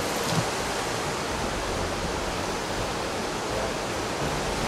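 Shallow rocky creek rushing over rapids: a steady, even rush of running water.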